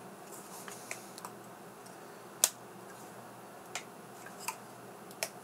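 Half a dozen light, scattered clicks and taps as fingers press on the compute modules and their plastic retaining clips on a Turing Pi cluster board, checking that the modules are seated. The sharpest click comes about two and a half seconds in.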